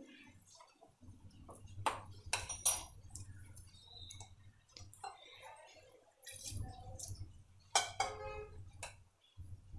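Wire whisk stirring thick flour-and-jaggery batter in a glass bowl, with soft wet scraping and a few sharp clinks of the whisk against the glass. The clinks come about two seconds in and again near the end. A low hum runs underneath.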